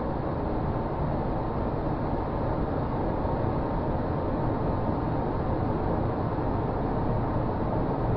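Steady low rumbling drone of noise, even and unbroken, offered as a space recording: spacecraft data turned into sound.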